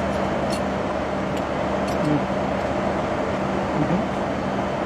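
Steady airliner cabin noise in flight: an even rush of engine and air with a constant low hum, and a few faint light clicks.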